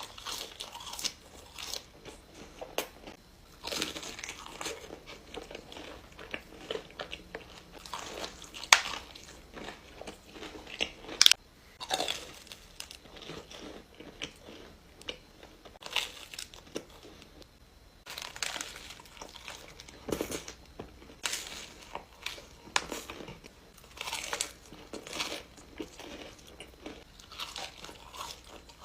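Close-miked eating: a person bites into crunchy food and chews it, with irregular crisp crunches and some wet chewing. The two loudest crunches come about 9 and 11 seconds in.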